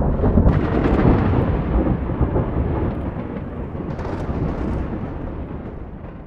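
Rolling thunder rumbling deep and slowly dying away, with sharper crackles about half a second in and again around four seconds in.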